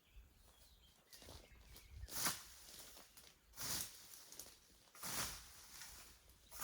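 Hand scythe swishing through tall grass, a steady rhythm of strokes about a second and a half apart.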